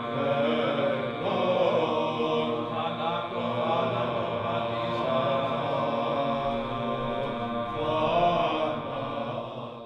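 Sacred choral chanting: voices singing a slow melody over a held drone note, fading near the end.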